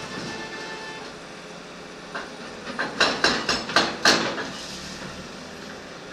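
Backhoe loader's diesel engine running steadily, with a quick run of about seven sharp clanks and knocks from about two to four seconds in.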